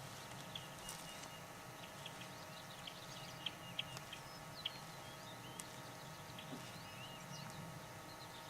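Songbirds chirping and singing, many short calls overlapping, with a few brief sharper chirps in the middle, over a faint steady hum.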